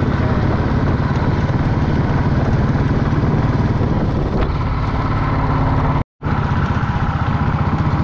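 Motorcycle engine running steadily while riding. The sound cuts out completely for a split second about six seconds in.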